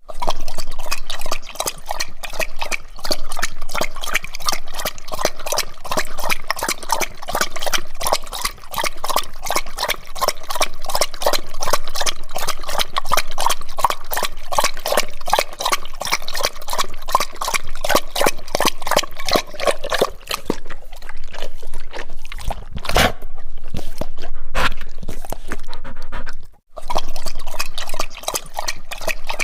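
A dog lapping water with its tongue, a rapid, rhythmic run of wet laps. About two-thirds of the way through the laps grow looser, with two louder knocks and a short break before the steady lapping picks up again.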